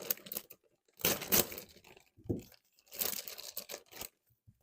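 Plastic packaging being torn and crinkled open by hand, in several rustling bursts, the loudest about a second in.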